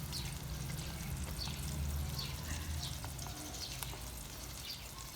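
Egg-and-flour-coated chicken pieces frying in hot oil, sizzling with scattered small crackles over a steady low hum.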